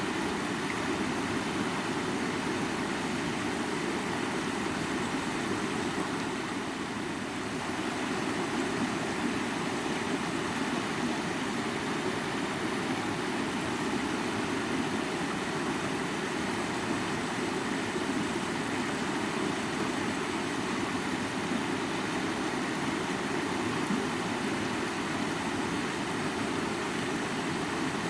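Mountain river flowing: steady rushing water with a low rumble, briefly a little quieter about seven seconds in.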